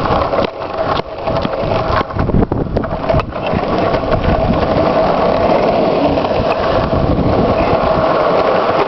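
Wind buffeting the microphone over the rolling noise of longboard wheels on asphalt at high speed downhill. A few sharp knocks come in the first three seconds, then the noise settles into a steadier hum.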